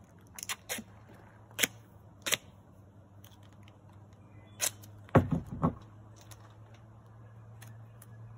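Duct tape being worked off its roll: a few sharp snaps and clicks in the first couple of seconds, then a short, loud burst of ripping as a strip is pulled off about five seconds in. A low steady hum sits underneath.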